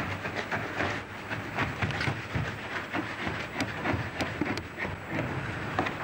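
Irregular scraping and clicking of hand tools cutting and chipping plaster, over the low hum and hiss of an old tape recording.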